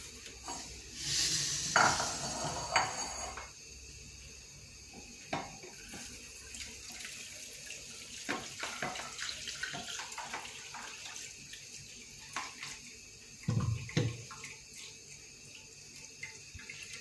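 Blended apple-and-lemon juice poured from a glass blender jug into a plastic strainer over a bowl: liquid splashing, then many small clicks and knocks of the jug and strainer, with a couple of dull thuds near the end.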